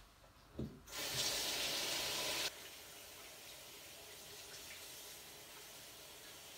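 Tap water running over a washing machine's drain pump filter as it is rinsed in a sink. It runs loud and splashing for about a second and a half, then drops suddenly to a quieter steady stream.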